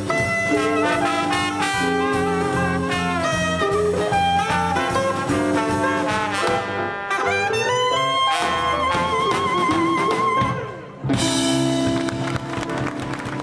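Live traditional jazz band playing the closing bars of a swing tune: soprano saxophone lead with brass, electric guitar, piano, double bass and drum kit. A single held note with vibrato rings out for a couple of seconds. After a brief gap, about eleven seconds in, the full band hits a final chord that rings on.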